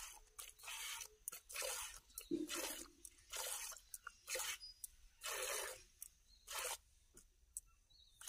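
Milk squirting by hand from a cow's teats into a plastic bucket: short hissing jets about once a second, fewer near the end.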